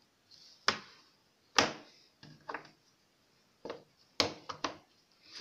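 Sharp plastic clicks and taps as the battery is pressed into a Nokia C6-01 and the phone's body is handled, about eight clicks, the two loudest in the first two seconds.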